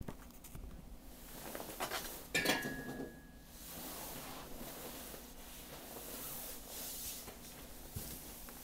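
Rustling and handling noise with one sharp metallic clink about two and a half seconds in that rings on briefly as a thin tone, then softer shuffling toward the end.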